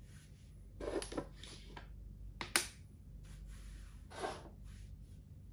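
Plastic Thai chess (makruk) pieces being picked up and set down on the board. There is a small cluster of clicks about a second in, one sharp click near the middle, which is the loudest, and another knock about four seconds in.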